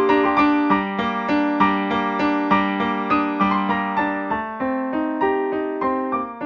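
Background piano music: a steady run of single notes, about three a second, moving over a few pitches.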